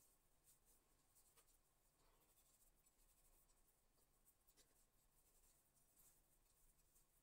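Near silence, with faint scratching of a chef's knife slicing through a raw turkey tenderloin to butterfly it open.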